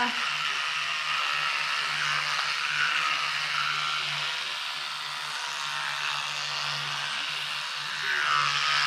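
A toothbrush scrubbing teeth in a steady, continuous hiss, as plaque-disclosing dye is brushed off.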